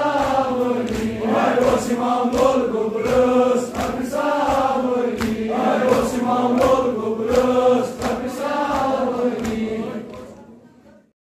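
Crowd of men chanting a mourning chant (noha) in unison, with sharp beats at fairly even spacing running through it. It fades out about ten seconds in.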